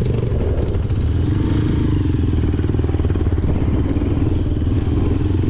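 Off-road motorcycle engine running steadily while riding over loose sand, its pitch rising slightly about a second in.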